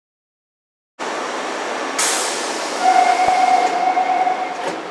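Interior sound of a Nagoya Municipal Subway Tsurumai Line 3000-series car, starting about a second in. A sudden hiss comes a second later, then a steady tone for about two seconds with a single thump in its middle.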